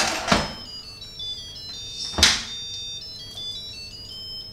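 Lid of an electric pressure cooker knocking as it is turned and unlocked, then clanking as it is lifted off about two seconds in, while a short electronic tune of high beeps steps down and back up in pitch.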